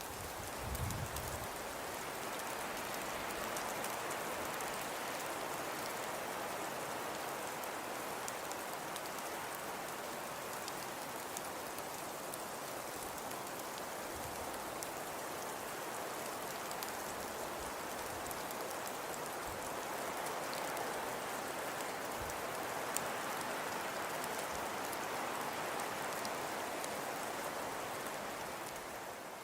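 Steady hiss and fine patter of a snowfall ambience, like wet snow or sleet falling on a surface, with a brief low thump about a second in. It fades out near the end.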